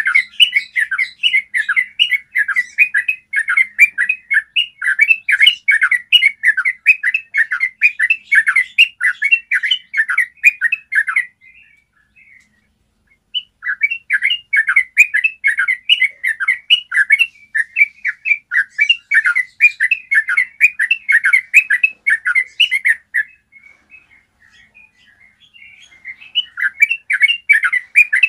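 Yellow-vented bulbul singing long rolling runs of rapid, clear chattering notes, several a second. The song breaks off twice for a couple of seconds and then starts again.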